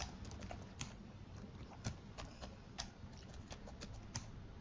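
Faint typing on a computer keyboard: scattered irregular keystroke clicks, with a few louder taps about a second apart.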